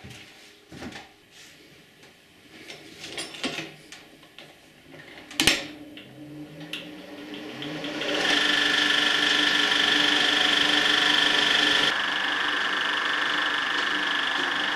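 Bauer B 8 B 35 mm cinema projector being started. A few clicks and knocks of its controls, with one sharp click about five and a half seconds in, then the motor and film mechanism run up over about two seconds. From about eight seconds in it runs with a steady mechanical whir, dropping slightly in level at about twelve seconds.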